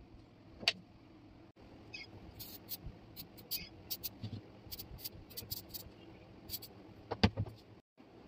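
WD-40 aerosol can sprayed in a string of about a dozen short hisses onto the rusty parts of an old hand brace drill. There is a click shortly before the spraying and a couple of sharp knocks near the end.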